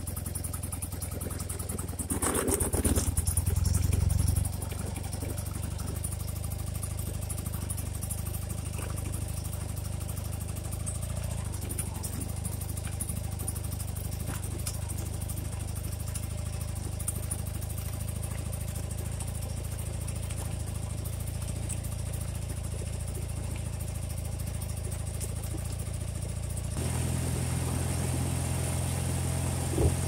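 Carbureted motorcycle engine running while riding, heard through a phone mounted on the handlebars. About two seconds in it grows louder for a couple of seconds as the bike accelerates, and near the end the engine note changes and gets a little louder.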